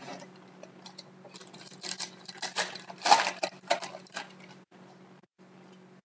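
Trading-card pack being opened and its cards handled: crinkling and rustling with quick sharp clicks, busiest between about one and four seconds in.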